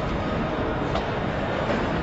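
Factory production-line machinery running: a steady mechanical noise, with one faint click about a second in.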